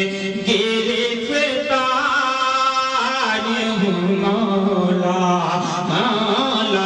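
A man singing an Urdu devotional kalaam solo, drawing out long held notes into a microphone. The notes waver in melismatic runs about two seconds in and again near the end.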